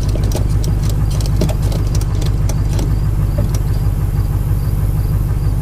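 A vehicle engine idling steadily close by, with scattered light clicks and knocks over it.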